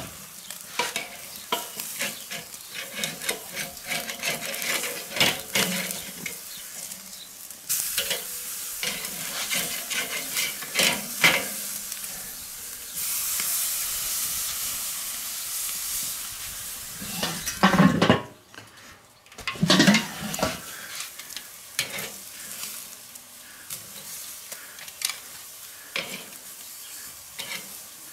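Pork-loin butterfly steaks sizzling and crackling on the grate of a charcoal kettle grill directly over the embers, with a steadier, louder hiss for a few seconds past the middle. Steel tongs click and scrape on the grate a few times as the steaks are moved.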